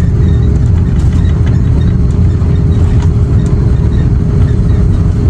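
Airbus A330-300 cabin noise during landing, heard from a seat by the wing: a loud, steady low rumble with a constant hum over it.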